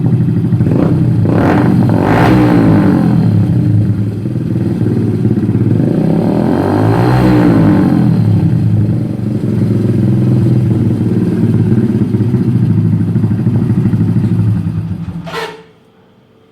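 Hero Splendor's single-cylinder engine running through an aftermarket M4-style exhaust silencer, blipped quickly a few times, then revved up and back down once, then switched off about a second before the end.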